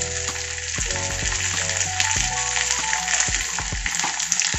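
Fresh curry leaves sizzling in hot oil in a small tempering pan with cumin, mustard seeds, chilli and cashews, as the pan is stirred with a spoon; a steady hiss, with background music beneath it.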